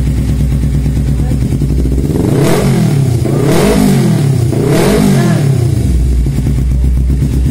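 Motorcycle engine through a newly fitted aftermarket slip-on exhaust, idling steadily, then revved three times in quick succession, each rev rising and falling, before settling back to idle near the end.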